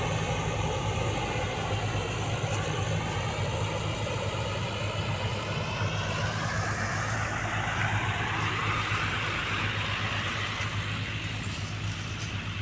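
Combine harvester running steadily at work, its engine droning with a low hum, the tone shifting as the machine moves, and easing off a little near the end.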